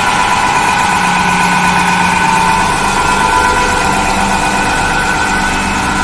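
High-pressure triplex plunger pump of a 1100 bar hydro jetting machine, driven by a 150 HP electric motor, running steadily with a constant whine over a low hum.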